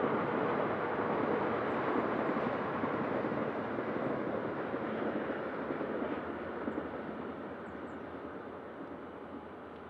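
Diesel locomotive No. 7369 running as it moves through the rail yard, a steady rumbling noise that fades over the last few seconds.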